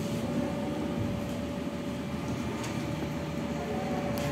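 Steady background hum of a room with one thin, even tone held throughout, and faint murmuring voices.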